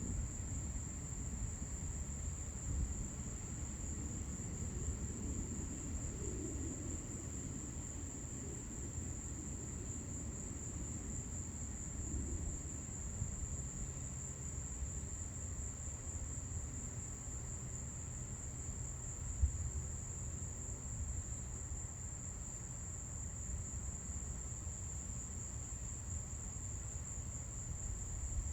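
Steady high-pitched chorus of night insects, such as crickets, over a low continuous rumble.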